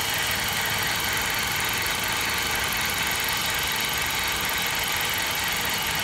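Jeep Compass engine idling steadily under the open hood, with the A/C compressor engaged and the air conditioning on high.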